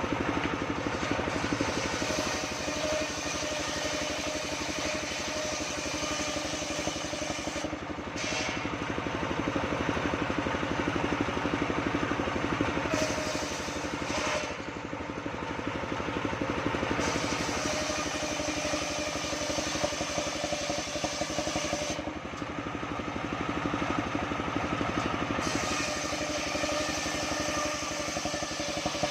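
Engine-driven sawmill running steadily while sawing sengon (albizia) timber. Its sound changes every few seconds, thinning out for a while around a quarter, a half and three quarters of the way through.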